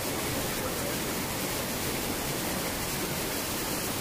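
Shallow river water rushing over rocks and small cascades: a steady, even rush of water.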